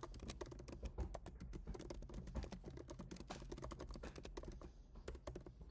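Fast typing on a computer keyboard: a steady run of quiet key clicks.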